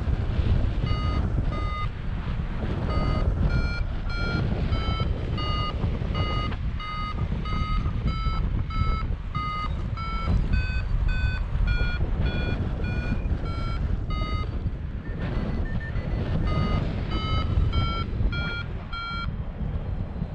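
Paragliding variometer beeping in short pulses, about three every two seconds, the pitch stepping up and down a little and the beeps pausing briefly about three-quarters through: the tone of a glider climbing in lift. Wind rushes steadily on the microphone underneath.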